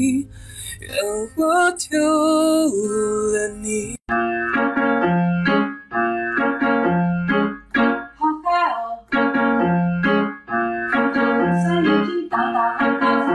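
Background music: a sung, wavering melody for the first few seconds, then a sudden cut to an instrumental keyboard tune of short repeated notes over a recurring bass note.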